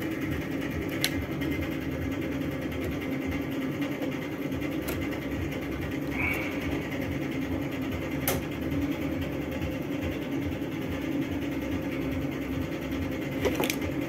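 A steady low mechanical hum, with a few sharp light clicks as a washing machine's plastic drain pump is handled and its seized impeller is turned by finger.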